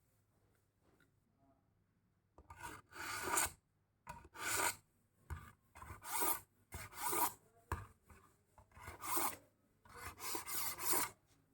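A knife blade drawn repeatedly through a knife sharpener, rasping metal on the abrasive, in about seven strokes roughly a second apart that begin a couple of seconds in.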